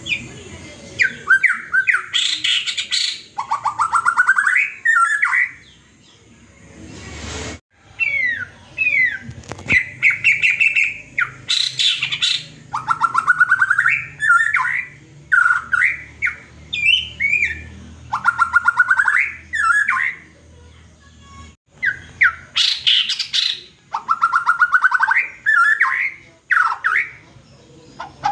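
White-rumped shama singing a repeated phrase that mimics a hen's post-laying cackle. The phrase comes about every five seconds: a burst of high quick notes, then a rising run of rapid pulsed notes, with whistled call notes in between.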